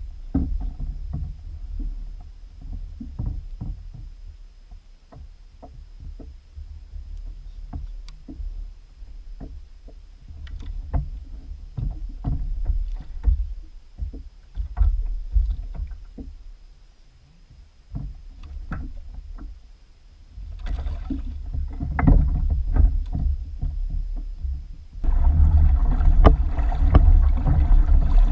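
Knocks and clicks from handling on a Native Slayer Propel 10 fishing kayak, over a constant low rumble. A louder, steadier noise comes in near the end.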